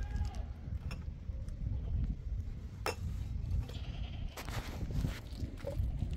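Livestock bleating, with a couple of sharp clinks of drinking glasses being handled over a steady low rumble.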